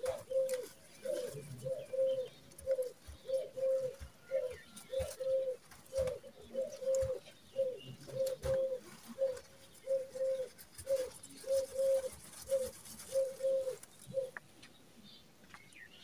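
A dove cooing in a long steady series of short repeated notes, stopping near the end.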